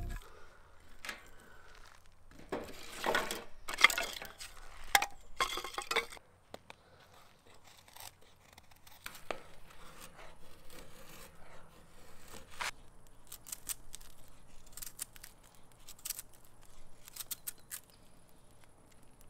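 A knife shaving curls of wood off a stick of kindling, with a run of scraping strokes in the first six seconds. After that come quieter scattered ticks and crackles as the kindling is lit and catches.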